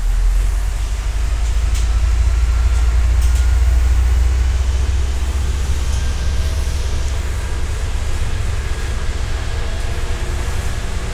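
Cabin noise of a MAZ-105 city bus under way: a steady low rumble from the drivetrain and road, with a faint high whine on top.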